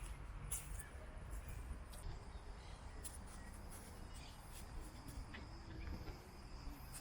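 Outdoor nature ambience: scattered short, high bird chirps and a thin, steady insect buzz over a low wind rumble.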